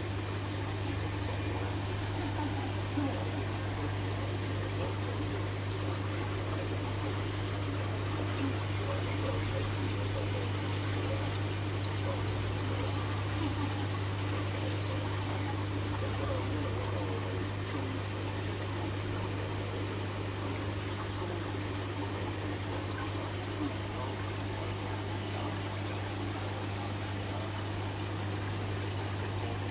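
Aquarium water trickling and pouring steadily from the tanks' filtration, over a constant low hum.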